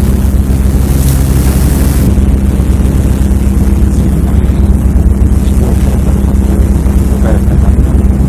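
Tour boat's engine running steadily, a loud low drone, with a rushing hiss over the top for the first two seconds.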